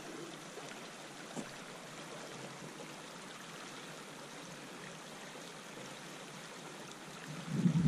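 Steady rushing of a small river's current running over a riffle, with a faint click about one and a half seconds in and a louder low rumble rising just before the end.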